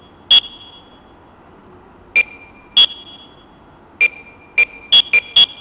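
Talking alarm clock giving eight short electronic beeps at irregular intervals, some higher and some lower in pitch, each starting with a click, as its buttons are pressed.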